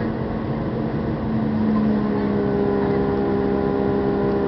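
Jet airliner's engines heard from inside the cabin during climb-out: a steady roar with a steady hum, getting slightly louder and gaining a higher tone about two seconds in.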